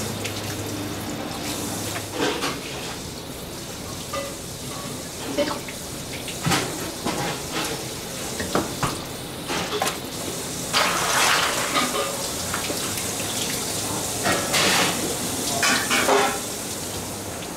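Kitchen work sounds: a tap running steadily, with irregular clinks and clatters of metal kitchenware, busiest about two-thirds of the way through.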